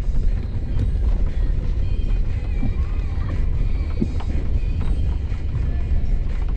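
Steady low rumble of an off-road truck driving a rough dirt trail, with wind buffeting the microphone and scattered short knocks from the bumps. Music plays faintly over it.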